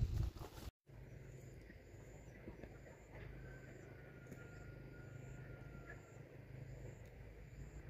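A brief bit of handling noise at the very start, then faint open-air lakeside ambience: a low steady hum with faint, short high chirps repeating at an even pace.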